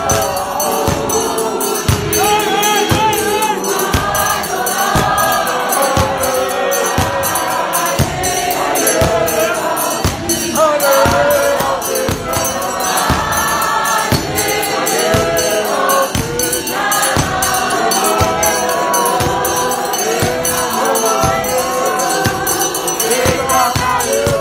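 A large crowd of church members singing a gospel hymn together, many voices at once, over a steady percussive beat about twice a second.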